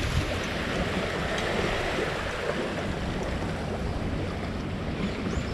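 Boat wake waves surging over a riverside walkway and washing against the railing: a steady rushing and sloshing of water.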